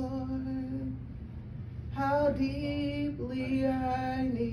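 A woman singing a slow worship hymn into a microphone, holding long drawn-out notes: one held note fades about a second in, and after a short pause she sings on from about two seconds in. A steady low hum runs underneath.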